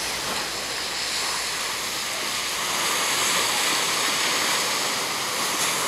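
Ocean surf breaking and washing up a sand beach: a steady rushing that swells a little about three seconds in.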